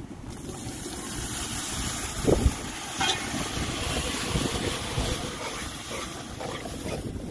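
A large pot of curry stew boiling hard, with a steady hissing bubble and steam and a low rumble under it. There is one brief bump about two seconds in.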